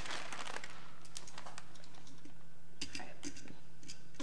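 Scattered light clicks and taps of kitchen tongs placing frozen chicken thighs in a pressure cooker's inner pot, over a faint steady hum.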